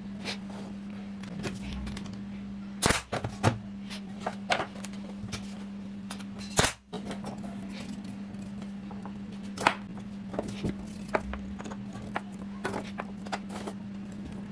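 Wooden frame strips and black egg-tray pieces knocking and clacking on a workbench as they are handled and fitted together: scattered sharp clicks and knocks, two louder knocks about 3 and 6.5 seconds in. A steady low hum runs underneath.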